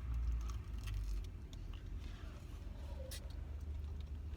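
Steady low engine rumble of an idling car heard inside the cabin, with faint scattered small clicks and rustles.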